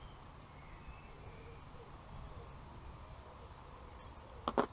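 Outdoor ambience: a steady low wind rumble with small birds chirping faintly. Near the end comes a brief, sharp double knock or rustle close to the microphone.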